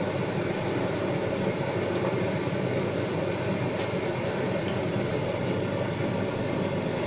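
Steady mechanical hum and whir of household appliances running in the background, with a few faint clicks.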